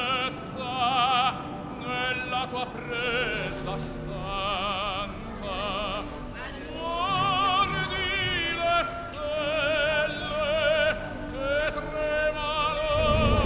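Operatic singing used as a soundtrack: long sung notes with wide vibrato.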